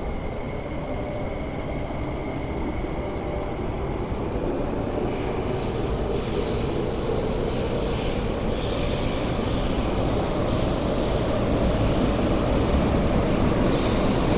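West Rail Line IKK-train (SP1900 electric multiple unit) starting off from an underground platform about five seconds in, its running noise growing steadily louder as it accelerates away.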